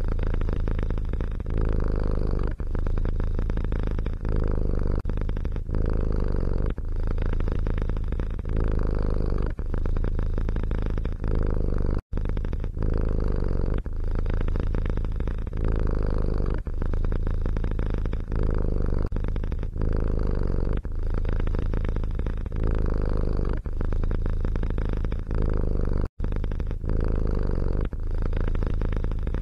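Domestic cat purring steadily, the rumble swelling and easing with each breath about once a second. It cuts out abruptly for an instant twice, about twelve seconds in and again a few seconds before the end.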